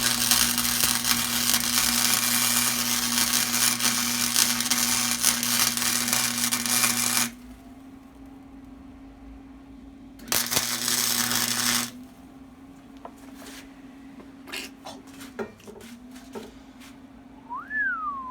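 Welding on a steel pedal mount, most likely MIG welding: a steady crackling arc with a low hum runs for about seven seconds and cuts off suddenly, then a second short weld of about a second and a half. Light taps and clicks follow, and near the end comes a brief squeak that rises and falls in pitch.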